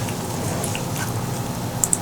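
Close-miked eating sounds: small wet mouth clicks while chewing pork curry and rice, a few sharp ones close together near the end, over a steady low hum.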